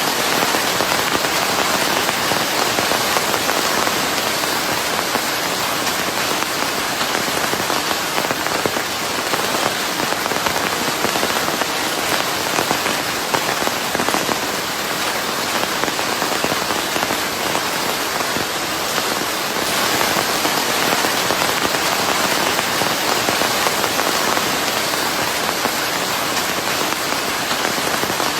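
Steady, heavy rain falling on a surface, an even dense patter blended with white noise, with no breaks or changes.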